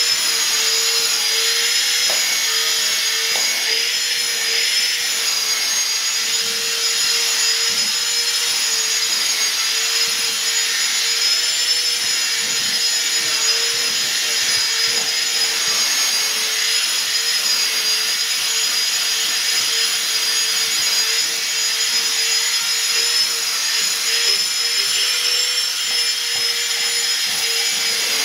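Vacuum cleaner running steadily with a constant high whine as its hose nozzle is worked through a dog's fur.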